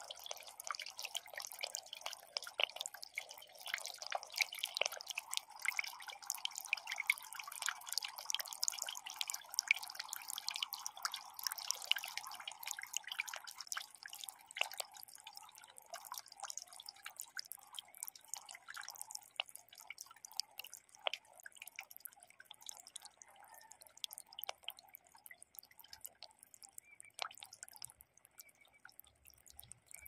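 Water trickling and splashing down a miniature concrete waterfall fountain, a dense patter of drips and small splashes that thins out and grows a little quieter after about twelve seconds.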